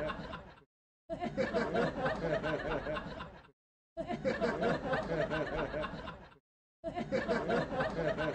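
A burst of human laughter, snickering and chuckling, about two and a half seconds long, repeated back to back with short dead-silent gaps between repeats.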